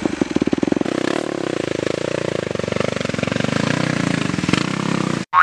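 Motocross bike engine running with a fast, even pulse, then revving up as the bike pulls away, its note climbing and then easing off. It cuts off suddenly near the end.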